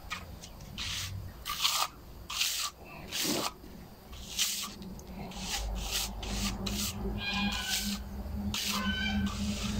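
Hand trowel scraping across wet concrete as a fresh slab is smoothed, in repeated rasping strokes about one or two a second. Birds call briefly near the end.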